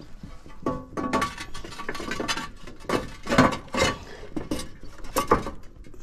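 A roof verge tile knocking and clinking while it is worked into place on the roof edge: a run of irregular hard clicks and knocks, the loudest about halfway through and again near the end.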